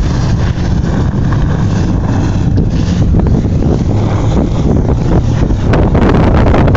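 Heavy wind buffeting the microphone over a steady engine drone, as when riding fast in an open vehicle or boat, growing a little louder in the second half with crackly hits near the end.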